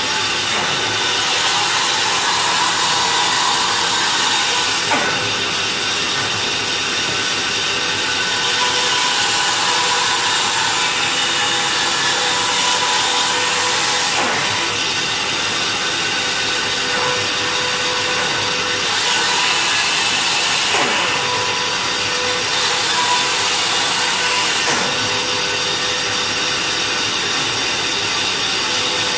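Small bandsaw running steadily while its blade cuts slowly through a thick block of solid wood, with a few short ticks along the way.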